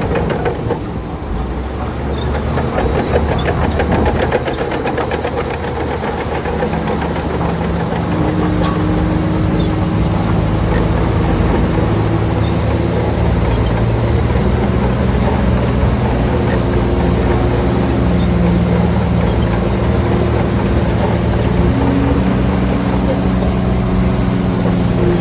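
Heavy diesel engine of an earthmoving machine running under varying load, its pitch stepping up and down several times.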